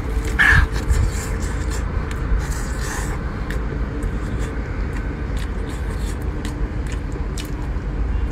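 A steady low engine rumble with a faint hum in it, carrying on throughout. Small scattered clicks sound over it as a cooked fish is torn apart by hand.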